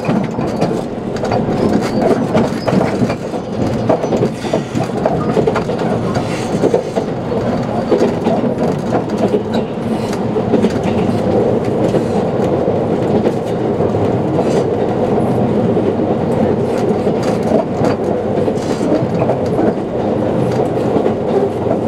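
JR Kyushu 787 series electric train running at speed, heard from inside the passenger car: a steady run of wheel-on-rail noise with scattered short clicks from the track.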